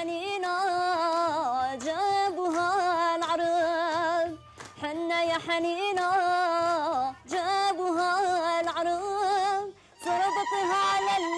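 A woman singing an ornamented, wavering melody in phrases a few seconds long, with short breaks about four and a half, seven and ten seconds in.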